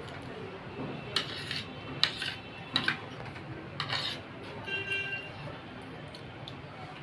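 A metal spoon clinking and scraping against a dinner plate while eating: a few sharp clinks over the first four seconds, then a short ringing scrape.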